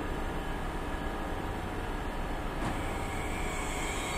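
Frecciarossa 1000 high-speed electric train moving slowly along the platform: a steady rumble and hum, with one short click about two-thirds of the way through.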